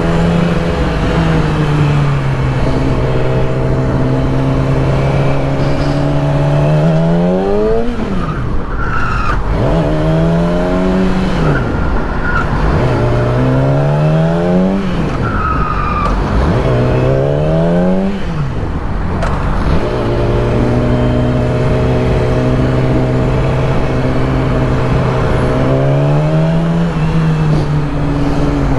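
2008 Yamaha R6's inline-four engine under way with wind rushing past. It holds a steady note, then a quarter of the way in the revs climb and drop four times through successive gears, settle back to a steady cruise, and climb again near the end.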